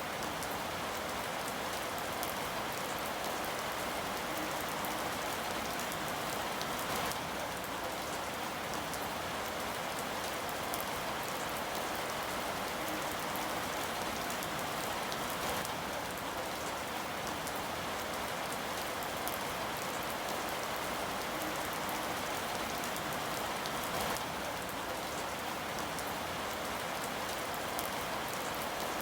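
Steady rain falling, with many individual drops pattering on a surface.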